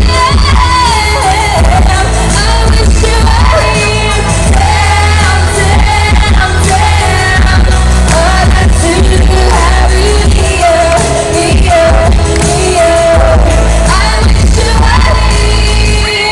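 Amplified live pop singing over loud music with a heavy bass line; the bass cuts out near the end as the song finishes.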